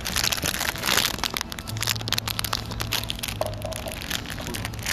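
Dense, loud crackling and rustling close to the microphone, many quick clicks packed together, over a steady low hum.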